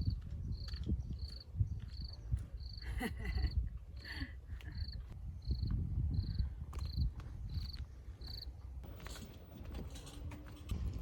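A short, high chirp or beep repeats at an even pace, about three every two seconds, and stops about eight and a half seconds in. It sits over a constant low rumble.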